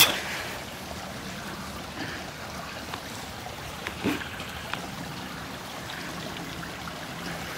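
Steady sound of a small woodland stream running and trickling, with a few brief knocks, the loudest right at the start and another about four seconds in.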